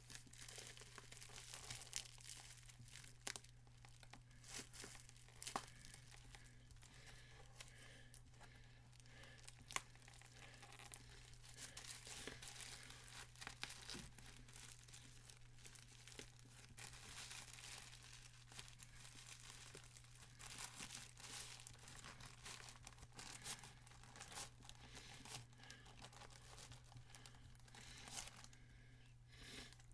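Packaging being torn and crinkled by hand, with irregular faint crackles and rustles throughout, over a steady low hum.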